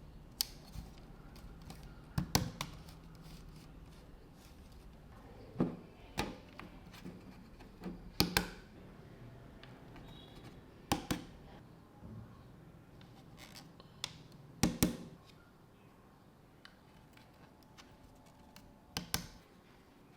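Hands handling a small desk fan and its packaging: a scattered series of sharp clicks and knocks, some in quick pairs, with light scratching between them.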